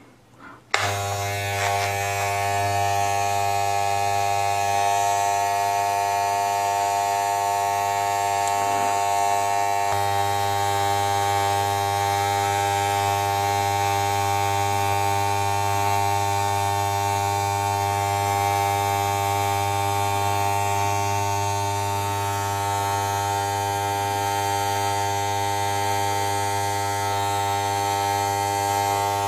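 Corded Wahl 9243-4724 hair clipper switched on about a second in, then buzzing steadily as it is run over the hair of a forearm.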